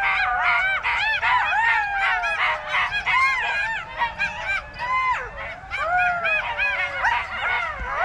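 A chorus of golden jackals howling and yipping: many overlapping, wavering cries, short rising-and-falling yelps over long howls that slide down in pitch.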